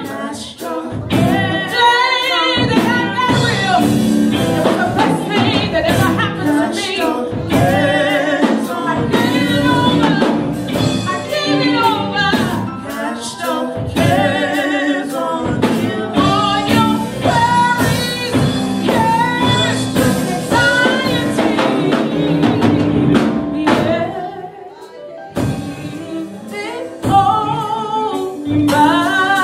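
Live gospel music: a lead singer and backing vocalists singing over a band with a drum kit. The held notes waver with heavy vibrato over regular drum strikes, and the music drops quieter for about two seconds near the end.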